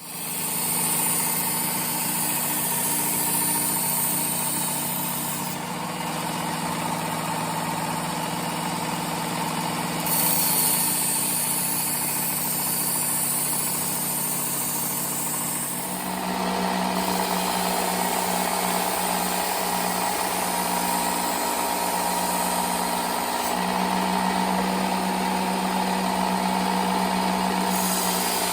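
Small bench belt sander running steadily while the steel edge of a chef knife is ground on the belt to sharpen it. The motor hum and grinding hiss change a few times, most clearly about 16 seconds in, as the machine or belt changes.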